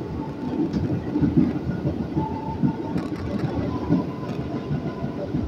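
Electric commuter train heard from inside the car as it pulls out: a steady rumble of wheels on rail with irregular low knocks, and a faint whine that comes and goes.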